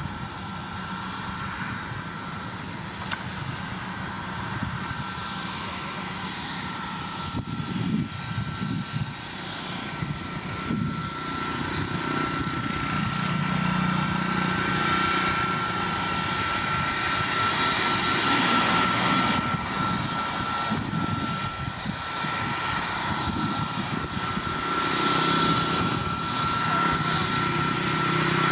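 Boeing 737 MAX 8's CFM LEAP-1B turbofan engines at low taxi power as the jet rolls toward the listener: a steady high whine over a rushing hum, growing louder as it nears.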